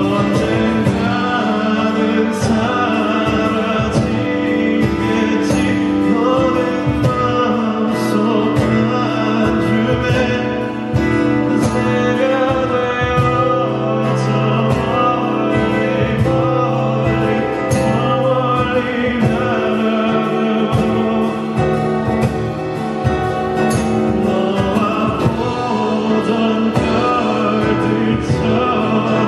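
Music: a male singer with guitar and percussion, the percussion striking sharply and regularly throughout.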